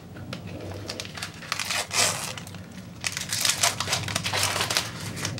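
Foil wrapper of a Pokémon trading card booster pack being torn open and crinkled by hand: a run of crackling rustles, with a louder burst about two seconds in and busier crinkling from about three seconds on.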